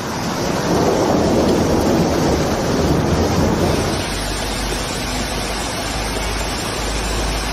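Loud rushing of a brown floodwater torrent surging past bridge piers. About four seconds in it gives way to the splashing roar of water pouring in a sheet off the edge of an elevated road onto the pavement below.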